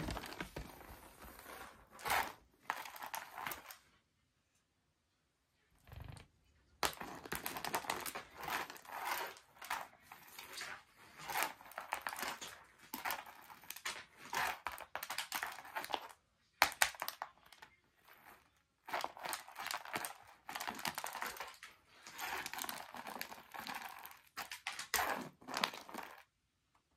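Bursts of rustling and scratching as a wand toy is swished and dragged over tatami mats and a cat pounces and scrabbles after it, with short pauses between bursts and a longer quiet stretch about four to seven seconds in.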